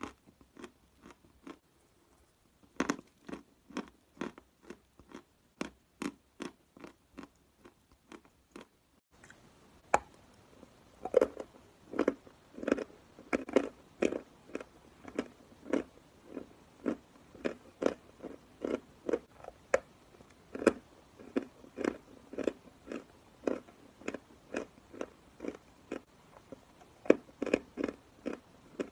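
Dry chalk being bitten and chewed close to the microphone: a steady run of crisp crunches at about two a second, with a brief pause about two seconds in.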